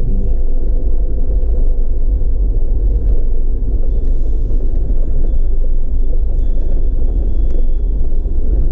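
Off-road vehicle driving slowly over a rocky dirt trail: a steady low engine and drivetrain rumble that goes on without a break.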